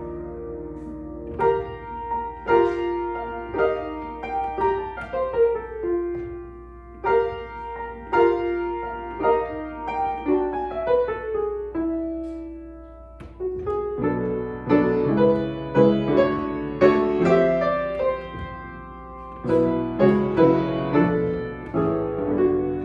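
Piano playing a Christmas carol arrangement: flowing runs of single notes over chords, easing off for a moment about halfway, then louder, fuller chords.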